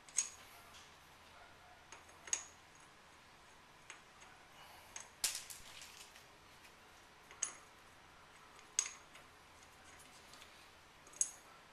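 Sharp metallic clinks and taps, about seven of them spaced a second or two apart, from metal tractor parts and hand tools being handled during a teardown.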